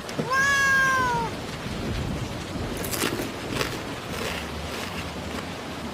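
A single drawn-out animal cry, about a second long and falling slightly in pitch at its end, over a steady hiss like rain.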